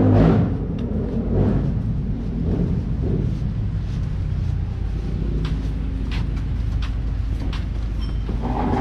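A vehicle engine running steadily with a low hum. In the second half come light, regular clicks about twice a second.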